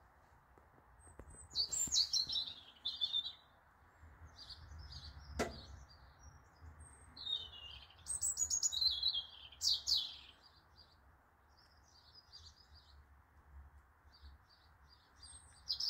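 Songbirds singing in short, high phrases, several of them with notes falling in pitch, and scattered chirps between. One sharp click comes about five seconds in.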